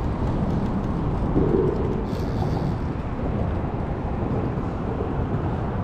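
Steady low rumble of wind and choppy water on the microphone, with no distinct single event.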